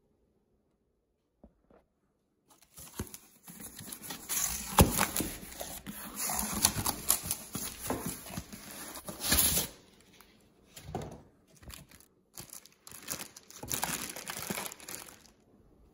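Packaging being handled during unpacking: cardboard box flaps, foam packing and a plastic bag rustling and crinkling. It starts a few seconds in and breaks into shorter bursts after about ten seconds.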